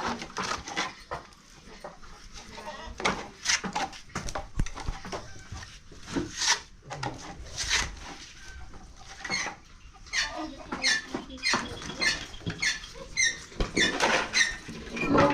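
Short, high-pitched animal calls repeated about once or twice a second through the second half, among scattered short knocks and clatter.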